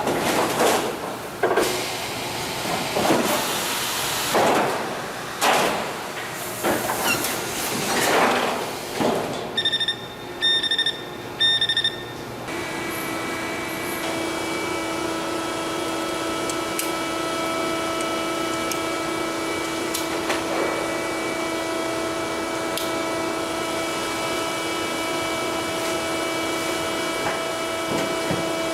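Sheet-metal production machinery for washing-machine outer cabinets at work. It starts with a run of short noisy bursts, then three evenly spaced electronic beeps, then settles into a steady machine hum with several held tones.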